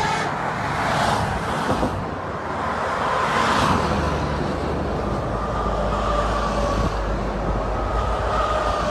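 Highway traffic passing close: a car and then a double-decker coach go by, each with a swell of tyre and engine noise. After that a heavy vehicle's low engine drone with a steady whine builds up.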